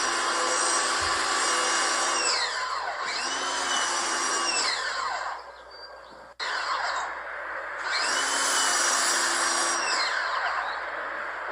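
Electric pressure washer running with a high motor whine over the hiss of the spray. The motor winds down and starts up again several times as the spray is stopped and started, with a brief lull and a click in the middle.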